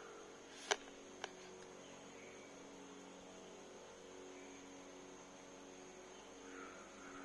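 Faint steady electrical hum in a quiet hall, broken by two sharp clicks about a second in, with a few faint chirps near the end.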